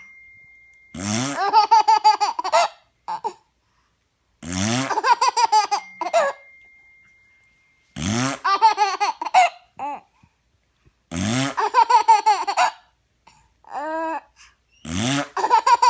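A baby laughing hard in repeated bursts, about one every three and a half seconds. Each burst starts with a low, rising fart noise that the baby laughs at.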